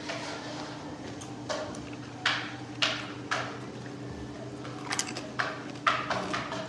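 A fork and tortilla chips clicking and scraping on a plate, about eight short sounds spread through, over a steady low hum.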